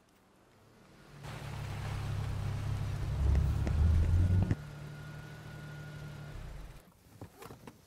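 Honda Civic car driving up and pulling to a stop: its engine sound rises and grows loud, drops abruptly about four and a half seconds in, then runs at idle with a thin steady whine until it cuts off near the end. A few clicks follow.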